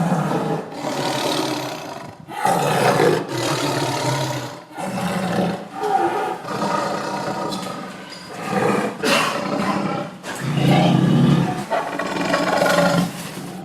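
Tiger roaring over and over, a run of loud roars of about a second or two each with short breaks between them.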